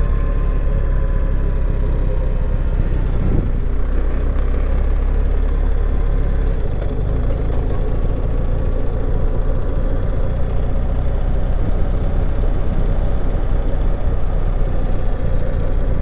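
A vehicle driving along, its engine and tyre noise making a steady low rumble.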